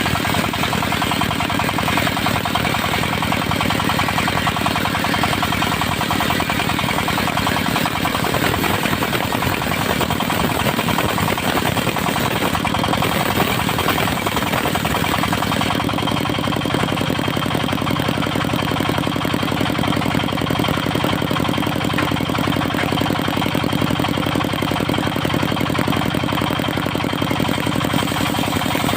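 Engine of a portable circular sawmill running steadily with a fast, even chugging, its note changing about sixteen seconds in.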